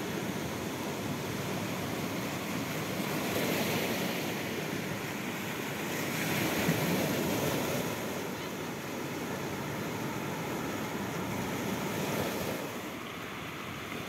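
Sea surf washing over rocks and pebbles at the water's edge, a steady rush of breaking waves that swells louder a few seconds in and again about halfway through.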